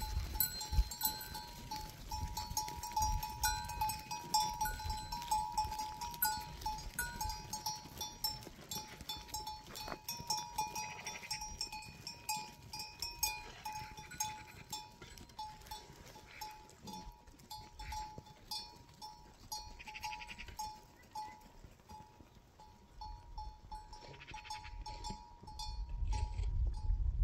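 Goats and sheep bleating now and then, over a constant run of small clicks and tinkles.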